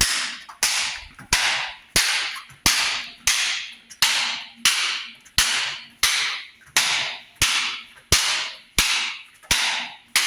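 A Vulpes Gear ginunting blade (a Filipino sword) being swung in hard, repeated chopping blows, about three every two seconds, each a sharp crack that quickly fades.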